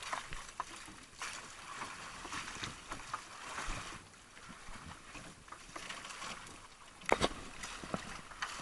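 Sea water splashing and lapping against the hull of a small outrigger fishing boat while a fishing net is dragged in over the side. A single loud knock against the boat about seven seconds in.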